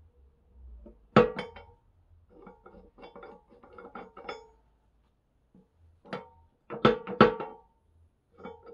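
Steel quick coupler clanking against a welded steel bucket adapter as it is test-fitted, with sharp ringing metal clanks. One loud clank comes about a second in, lighter clinks and knocks follow, and a quick run of loud clanks comes near the end.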